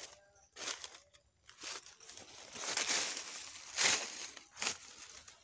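Footsteps crunching and rustling through dry fallen leaves and grass, about one step a second, with a longer rustle around the middle.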